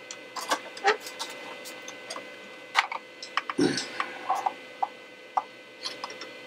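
Light clicks and taps of handling at an electronics workbench, with a heavier knock about halfway through, as a magnifier lamp is swung into place over a laptop logic board. A faint steady whine runs underneath.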